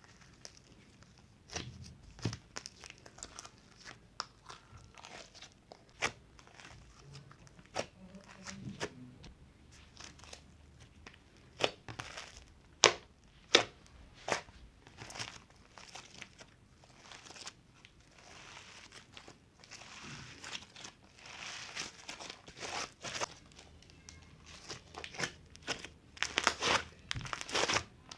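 Slime being squished and poked by hand, giving a series of sharp pops and clicks, with crinkly crackling stretches past the middle and near the end.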